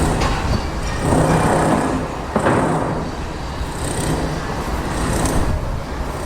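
Construction site ambience: heavy machinery running with a steady low rumble, a louder noisy surge about a second in, and a sudden harsh burst of noise about two and a half seconds in that dies away.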